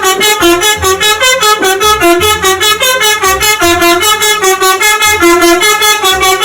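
Bus "telolet" horn melody over an electronic beat: a tune of stepped, horn-like tones with steady percussion and a pulsing bass.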